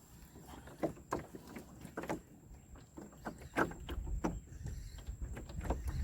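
Irregular light clicks and knocks of gear and hull on a small fishing boat while a fish is being played, with low wind rumble on the microphone building from about four seconds in.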